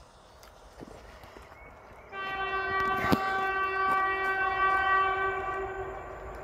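EU07 electric locomotive's horn giving one long, steady single-pitch blast of about four seconds, starting about two seconds in: the Polish Rp1 "Baczność" (attention) warning on approach to the level crossing. A single sharp click about three seconds in.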